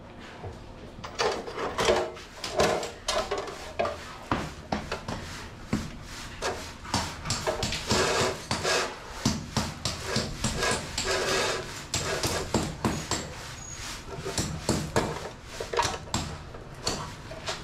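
Hand-tool work on a building site: irregular knocks and rough scraping strokes, with longer scrapes about eight and eleven seconds in.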